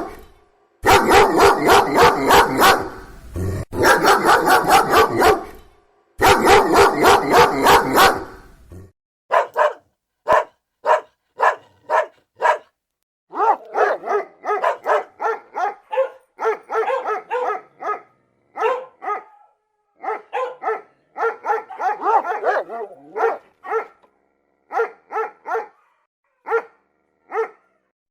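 Dogs barking. Dense runs of rapid barks fill the first nine seconds or so, then a different dog gives single barks about twice a second, and from about halfway a pack of dogs barks together in short bursts.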